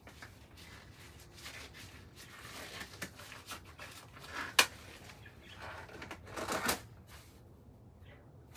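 Quiet handling sounds as things are moved about on a workbench: a sharp click a little past halfway, and a brief rustle about two seconds later.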